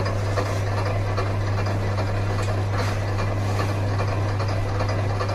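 Electric motor of a B8 Pro wire stripping machine running with a steady low hum, with light mechanical noise from the machine working on two-core cable.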